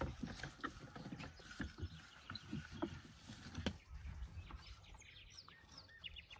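Quiet, scattered light clicks and knocks of a small hand tool working on a toy car's wheel and axle, with a short run of faint high chirps near the end.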